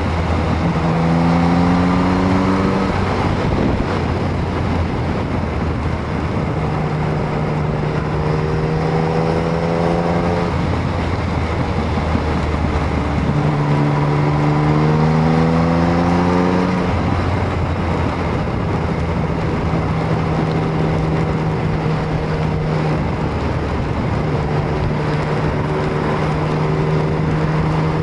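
Yamaha MT-09's three-cylinder engine pulling out of corners, its pitch climbing under acceleration three times (at the start, about eight seconds in and about fourteen seconds in) and holding steadier between pulls, over constant wind and road noise.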